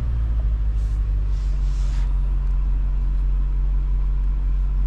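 2024 BMW X5 M's twin-turbo V8 idling, a steady low rumble heard from inside the cabin.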